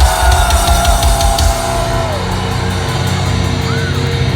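Heavy metal band playing live at full volume: distorted guitars and pounding low drums for about the first second and a half, then the guitars ringing out in long held tones that slide down in pitch.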